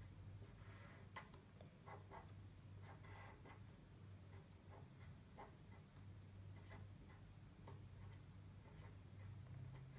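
Faint scratching and tapping of a pen writing numbers on paper, in short irregular strokes, over a low steady hum.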